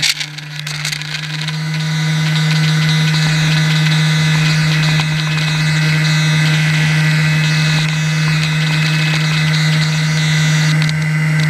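Radio-controlled airboat's motor and pusher propeller running at a steady speed, heard close from a camera mounted on the boat. It dips for a moment near the start, then picks back up and holds one steady pitch.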